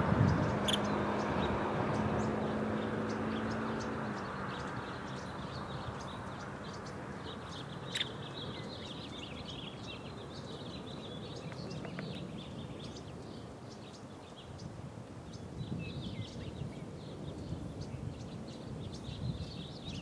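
A distant engine drone fades away over the first few seconds. Faint high bird chirps run throughout, and from about the middle on come soft, irregular low knocks as the woodpecker chisels at its nest hole in the eucalyptus trunk.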